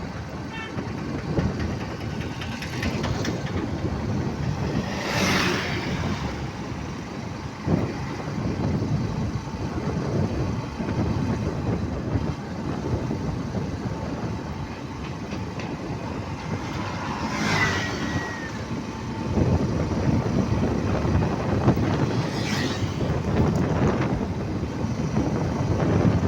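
Road vehicles running: a continuous engine and tyre rumble, with louder swells about five seconds in, around seventeen seconds and around twenty-two seconds.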